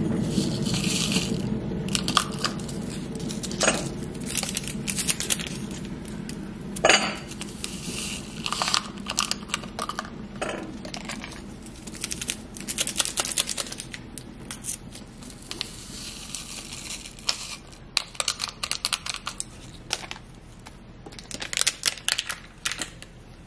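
Plastic sachets crinkling and tearing open by hand beside a ceramic cup, with many sharp clicks and one louder click about seven seconds in, over a low hum that fades.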